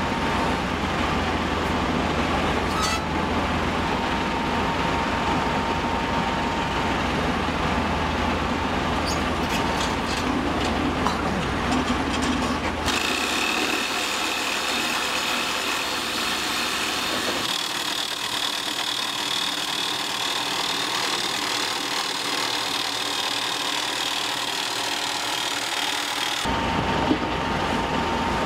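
Comacchio MC 12 crawler drill rig running and drilling a self-drilling hollow bar anchor, a steady heavy machine noise with a low rumble. About halfway through the sound changes abruptly to a hissier one with a steady high whine and little low rumble, and switches back a couple of seconds before the end.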